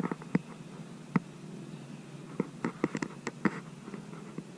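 Handling noise: irregular light clicks and taps as a hand moves around a steel bracket and the camera is shifted, the sharpest about a second in. A low steady hum runs underneath.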